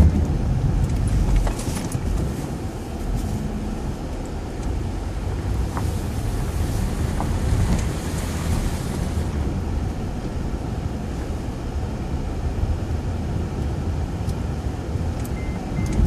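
Steady low rumble of road and engine noise inside the cabin of a 2011 Acura TSX driving on snowy streets, with a swelling hiss about six to nine seconds in.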